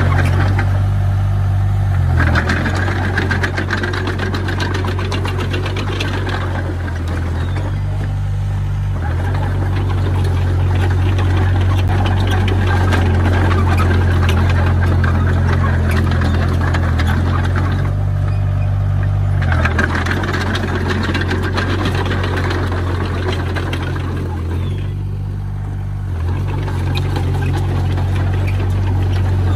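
Diesel engine of a Komatsu D20P bulldozer running steadily at work, its note shifting several times as the load changes.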